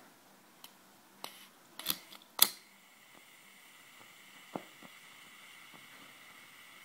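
A pocket lighter struck a few times with sharp clicks, the last and loudest about two and a half seconds in, after which its gas flame burns with a steady faint hiss while held to a ballpoint pen's tip; a couple of light taps come about halfway through.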